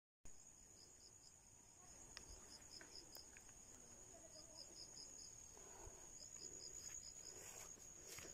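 Faint insect chorus: a steady high-pitched trill, with a second insect chirping in short runs of quick, evenly spaced pulses every second or two.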